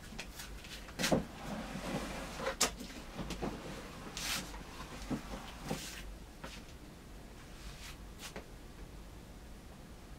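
Plastic snake tub being handled: a string of short knocks, clicks and scrapes of plastic, busiest in the first six seconds, then only a few faint ticks.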